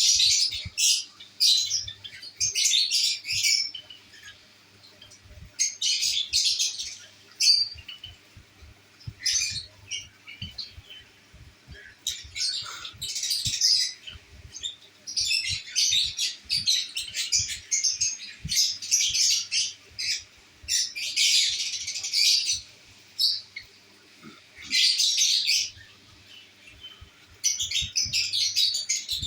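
Pet lovebirds chirping in repeated bursts of high, shrill notes, with short pauses between the bursts.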